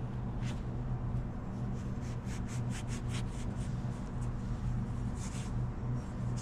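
Light scraping and clicking from parts being handled during a small-engine carburetor swap: a quick run of short clicks in the middle and a brief hiss near the end, over a steady low hum.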